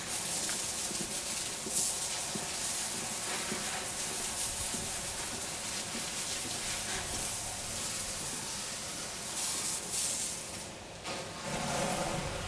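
Steady hiss of a soft-wash spray gun spraying cleaning solution onto clay roof tiles; the spray stops about eleven seconds in.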